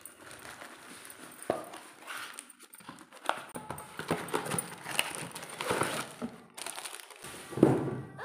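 Packaging and parts of a mini mixer grinder being handled during unboxing: irregular rustling, clicks and knocks, with the loudest knock about seven and a half seconds in.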